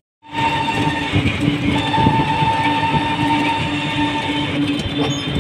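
Auto-rickshaw engine running and road noise heard from inside the moving rickshaw, a steady drone with a humming tone. The sound cuts out for a split second at the very start.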